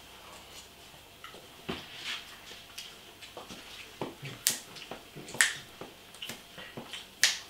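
A scattering of short, sharp clicks and snaps, the three loudest about four and a half, five and a half and seven seconds in.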